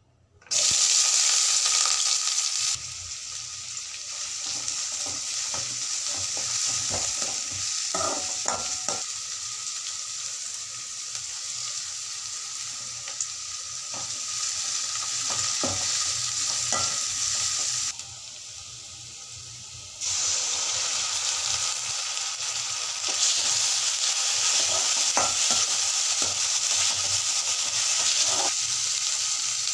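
Chopped small onions frying in hot oil in an aluminium kadai: a loud sizzle starts suddenly as they drop into the oil, then carries on steadily while a steel ladle scrapes and clinks against the pan as they are stirred. The sizzle drops lower for a couple of seconds about two-thirds of the way through.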